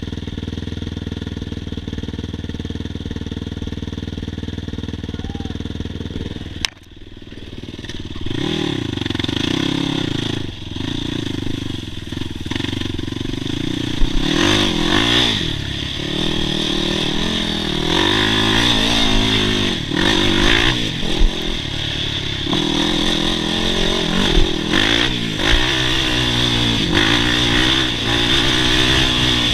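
ATV engine idling steadily, then, after a sudden cut about seven seconds in, an ATV engine heard while riding, revving up and down again and again over rough dirt. A few sharp knocks and rattles come from the machine.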